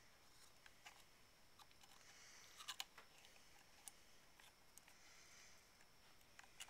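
Near silence with a few faint, scattered clicks and taps from the paintball marker's parts being handled, including a small cluster of clicks a little before three seconds in.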